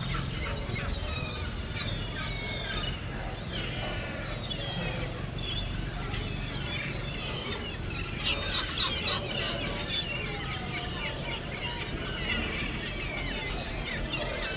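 A flock of gulls calling, many short cries overlapping throughout and busiest a little past the middle, over a steady low background rumble.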